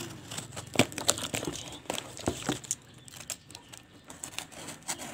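Box cutter slitting packing tape and corrugated cardboard: irregular scraping and crinkling, with several sharp clicks as the tape and board give way.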